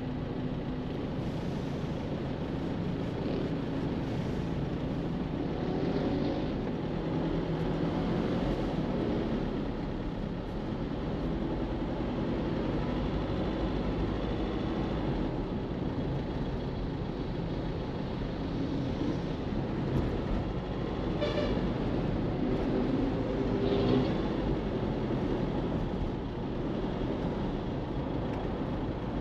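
Steady engine and road noise of a car driving through city traffic, with other vehicles around it. A brief sharp sound stands out about three-quarters of the way through.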